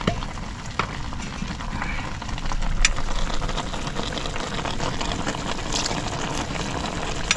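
A pot of vegetable broth boiling steadily, with a few light clicks of a utensil against the pot.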